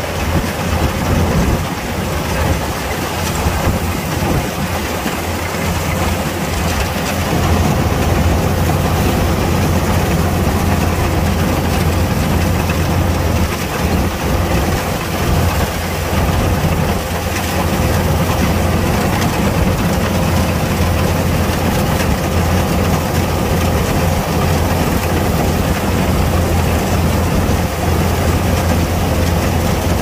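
Kubota DC105X combine harvester running steadily while harvesting rice: its diesel engine and threshing machinery make a constant loud low hum with a thin steady tone over it.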